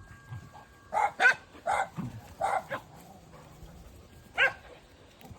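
Small dog barking in short, high yappy barks: a quick run of five in the first few seconds, then a pause and one more near the end.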